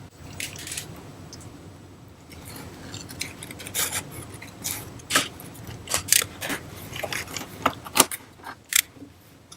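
Product packaging being handled and opened by hand: a run of sharp crinkles, rustles and small knocks that grows busier about three seconds in.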